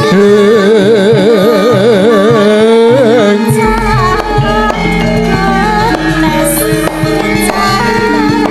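Javanese gamelan music with a voice holding a long, wavering note over the first three seconds, then steady bronze metallophone notes. A deep, sustained low tone comes in about three and a half seconds in.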